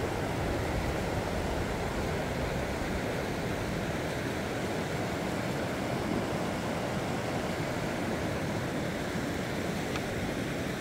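Shallow river rapids rushing steadily over a stony bed.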